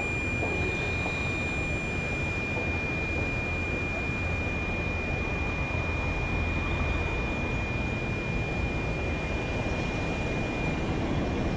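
Steady outdoor background rumble with a continuous high-pitched whine running over it; the whine stops about a second before the end.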